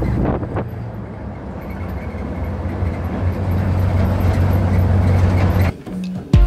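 Steady low engine and road rumble from a Jeep driving over the island's roads. It cuts off abruptly near the end.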